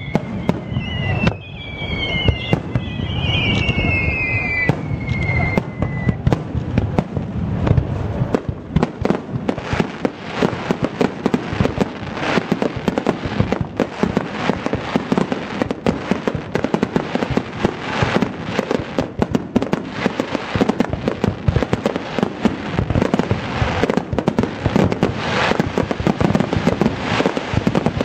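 Aerial fireworks: a few falling whistles in the first seconds, then a dense, continuous barrage of shell bursts and crackling that keeps up without a break.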